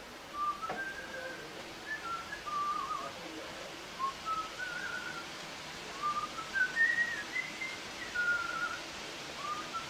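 A man whistling a wandering tune to himself, one clear note at a time, sliding up and down.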